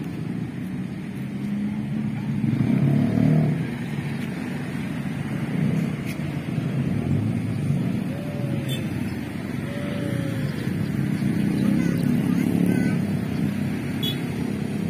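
Road traffic: cars and motorcycles passing on the street, a steady low rumble that swells louder twice, a couple of seconds in and again near the end.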